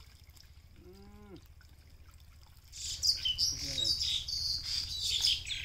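Small birds chirping in a dense run of quick, high calls that starts nearly three seconds in and is the loudest sound, over a faint steady low rumble.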